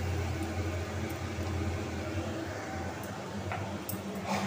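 Steady low hum with an even hiss of kitchen background noise. Near the end come a few light clicks and a clink of a spoon on a spice jar as more spice is scooped out.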